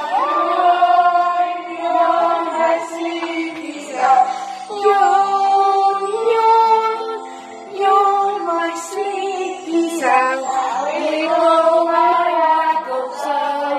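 A woman singing a children's action song along with a recorded backing track.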